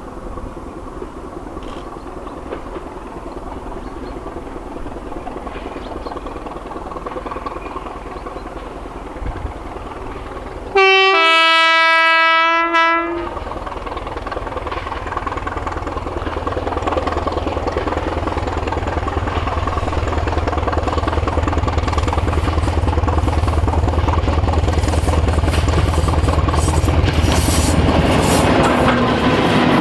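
British Rail Class 205 'Thumper' diesel-electric multiple unit approaching and passing, the low beat of its English Electric four-cylinder diesel engine growing louder as it nears. About eleven seconds in it sounds its two-tone horn, a short higher note then a longer lower one, for about two seconds. Wheels clatter over the rail joints as it passes near the end.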